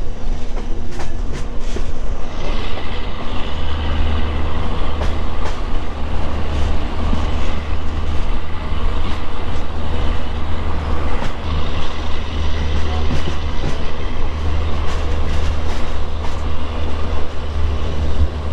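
Passenger train running along the track, heard from on board a coach: a steady low rumble with repeated clicks of the wheels passing over rail joints.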